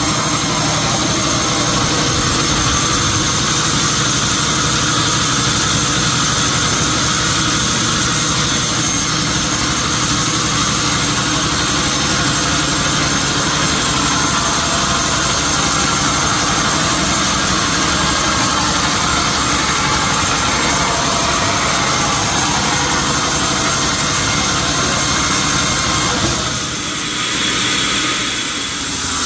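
Sawmill machinery running steadily, a loud, even machine noise with several steady tones through it. Near the end it changes and dips briefly in level.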